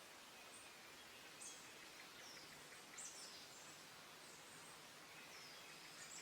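Faint, high-pitched chirps and short falling calls of small songbirds, scattered about once a second over a steady hiss.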